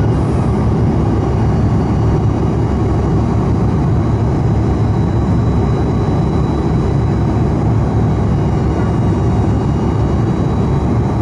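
Steady in-flight cabin noise of a Fokker 100 airliner: the rush of airflow and the drone of its rear-mounted Rolls-Royce Tay turbofan engines, with a faint steady high whine on top.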